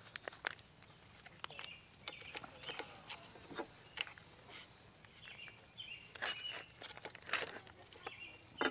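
Foil meal pouch crinkling and crackling in the hand in short irregular bursts as the food is squeezed out into a frying pan, with brief bird chirps in the background.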